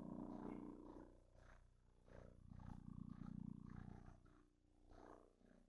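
Near silence with a faint low rumble that swells and fades twice.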